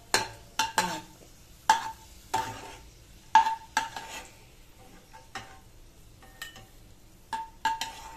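Steel ladle scraping and clinking against a metal kadai and a small steel bowl while ghee-roasted raisins are scooped out: about a dozen irregular sharp strokes, each with a short metallic ring.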